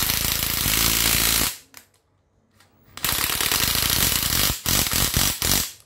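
A 7.2 V cordless impact driver running with its hammer mechanism rattling in rapid impacts. It runs in two bursts: one that stops about a second and a half in, and another from about three seconds in to near the end.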